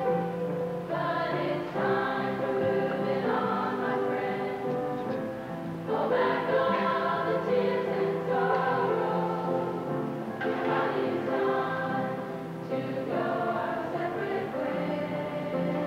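A large group of high-school students singing together as a choir, in held notes and phrases with short breaks between them.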